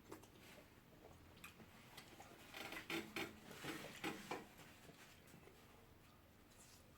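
Quiet eating sounds from hand-eating starch and pepper soup: scattered small mouth clicks and smacks, busiest between about three and four and a half seconds in.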